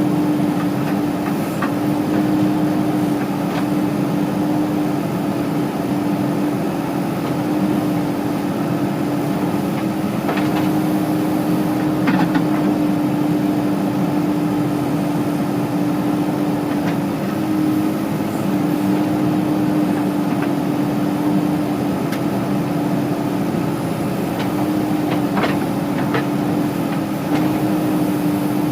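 Heavy diesel engines of a backhoe loader and a tractor running steadily at a constant pitch, with a few brief knocks.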